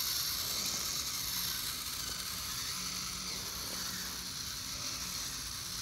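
Small DC drive motors of a KIPR Link line-following robot whirring steadily with a high hiss, with faint low hums coming and going as it drives along the line.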